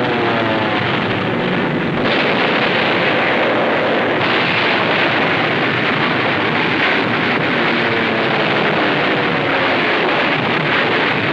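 A loud, steady roar of aircraft engines, with faint engine tones gliding in pitch near the start. It grows slightly brighter about two seconds in and again about four seconds in, with no distinct blasts.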